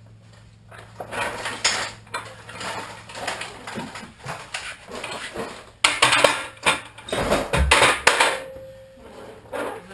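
Mechanic's creepers being fetched and moved across a shop floor, their metal frames and casters clattering and knocking irregularly, with a heavy thump about two thirds of the way through and a short squeak just after.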